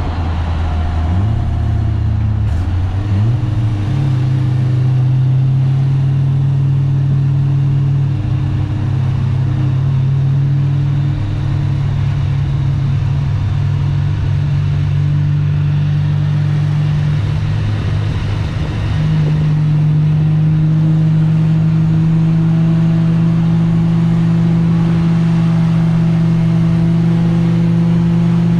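Toyota Chaser's engine running at a steady, moderate pitch while the car cruises, stepping up in pitch a few times, about a second in, about four seconds in and again about nineteen seconds in.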